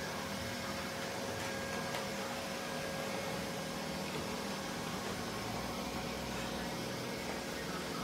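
Robot vacuum running, a steady even whir with a faint constant hum in it.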